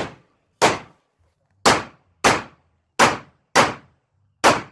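Seven pistol shots, fired in quick pairs about half a second apart with about a second between pairs, each crack followed by a short fading tail.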